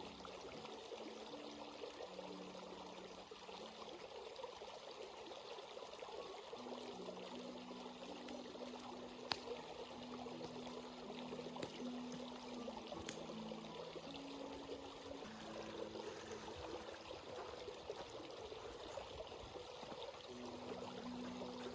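A stream flowing and trickling over rocks in a steady, even rush of water. Faint low held tones shift in pitch underneath, and there is one sharp click about nine seconds in.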